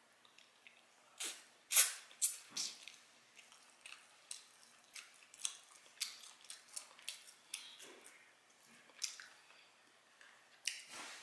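Close-miked mouth chewing meat, with irregular wet smacks and clicks of the lips and tongue, the loudest about two seconds in.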